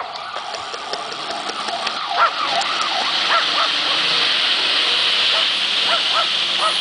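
A dog barking, short barks in small clusters about two seconds in, around three and a half seconds and again near the end, over the steady low running of fire engines driving slowly in.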